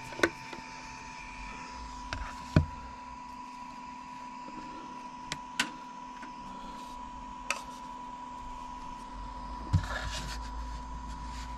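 Handling noises of a 3D printer's removable build plate being slid out and set down on a wooden desk: about half a dozen short sharp clicks and knocks, the loudest about two and a half seconds in, over a steady hum.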